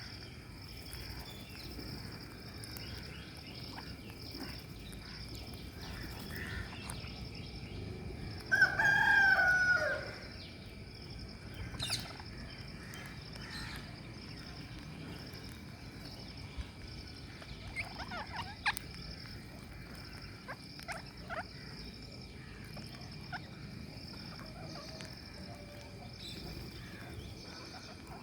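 Birds calling: one loud call lasting about a second and a half, falling in pitch at its end, about eight seconds in, followed by scattered short calls.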